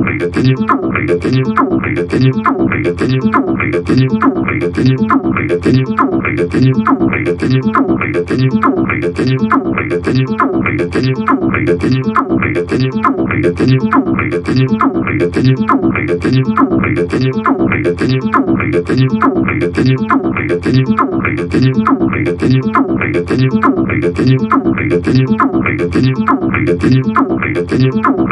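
TB-303-style acid synthesizer playing three-note chords in a steady run of short repeated notes, each opening bright and quickly closing down as the filter sweeps shut.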